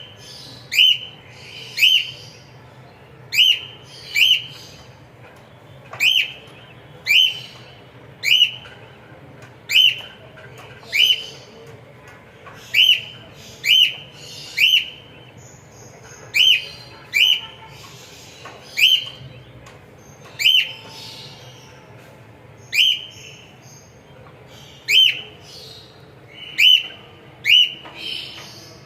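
Cockatiel calling over and over with a short, sharply rising chirp, about once a second and often two in quick succession.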